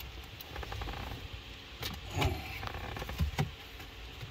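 Plastic centre-dash trim bezel of a Jeep Grand Cherokee being handled and fitted against the dash, giving a few light clicks and knocks of plastic on plastic over a low steady hum.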